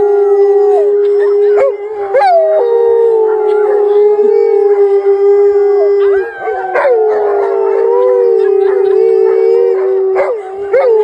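Wolves howling together, several long, steady howls at different pitches overlapping, with a woman howling along with them. The chorus breaks off briefly about two, six and ten seconds in and picks up again with short rising swoops.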